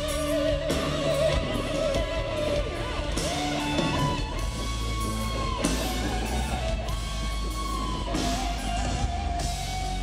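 Live rock band playing loud amplified music: long sustained lead notes that bend and waver, over electric guitar, bass and drums, heard from the crowd.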